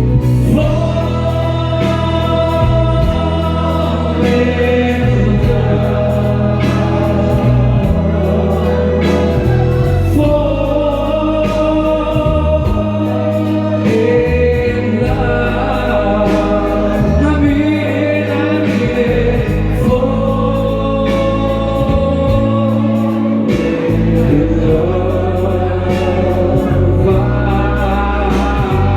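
Music: a passage without lyrics in a slow English-language song, with held chords over a steady bass line.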